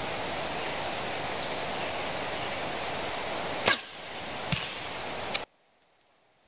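A compound bow being shot: a sharp snap as the string is released, then a fainter knock of the arrow hitting the target a little under a second later, over a steady rushing of wind. A last small tick comes just before the sound cuts off abruptly.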